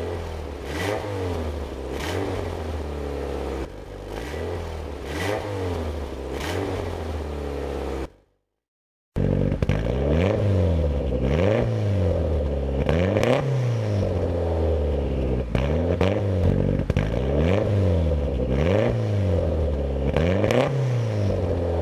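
Car engine revved repeatedly, about every two seconds, through an aftermarket muffler with an electronically controlled valve. First the valve is closed and the exhaust is quieter. After a one-second break the valve is open and the same revs come through noticeably louder.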